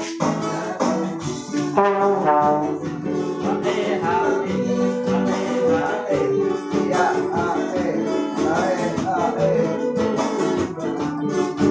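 A small band playing together: trombone, acoustic guitar and electronic keyboard, over a steady beat.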